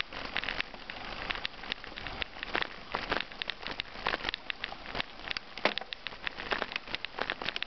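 Bicycle tyres rolling over a loose gravel track: a steady crunch with many irregular small clicks and pops of stones.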